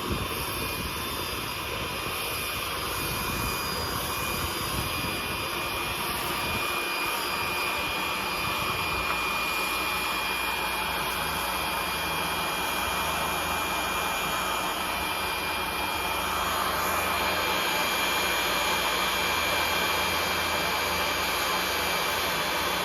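Pressure washer running steadily: a continuous hissing noise with a thin, steady high whine, joined by a low hum about seven seconds in.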